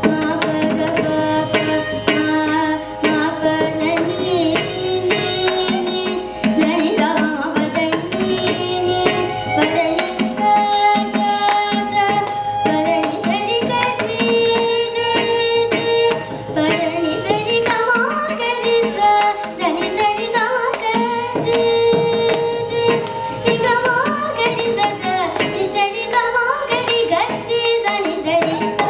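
Carnatic vocal music: a young girl singing ornamented, sliding melodic lines, accompanied by mridangam drumming and violin.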